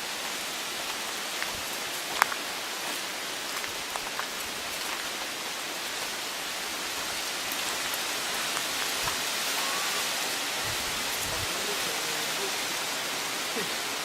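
Steady jungle background: an even high hiss that swells slightly midway, with a few faint clicks and small chirps.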